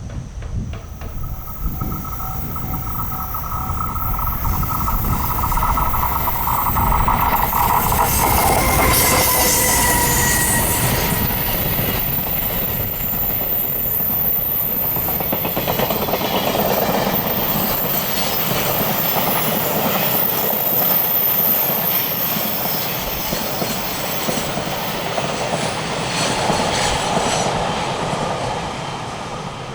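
A train passing on the Hokuriku Main Line: steady ringing tones for the first several seconds, a falling tone about nine seconds in as it goes by, then about twenty seconds of loud wheel and rail noise with a high squeal, easing near the end.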